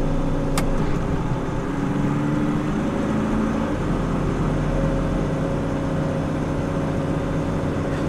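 John Deere 4240 tractor's six-cylinder diesel engine running steadily under load, heard from inside the cab as it pulls up an uphill road. There is one sharp click about half a second in.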